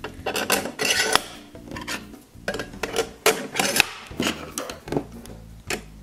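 Small screwdriver driving screws into a metal external hard-drive enclosure: irregular metallic clicks and scraping as the bit turns in the screw heads.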